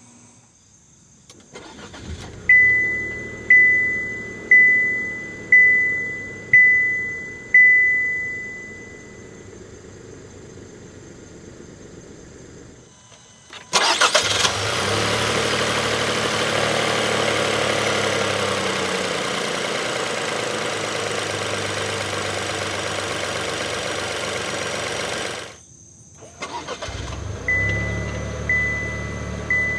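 Push-button start of a 2024 Buick Encore GX ST AWD's turbocharged 1.3-litre three-cylinder engine: a brief crank and catch, then idling while a two-note-free dashboard warning chime sounds six times about once a second. The idle is then heard close up from the engine bay, louder and with a steady hiss, and near the end from the exhaust, with the warning chime repeating about once a second.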